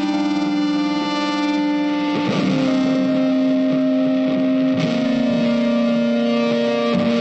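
Background music with long held notes whose pitch changes about every two seconds.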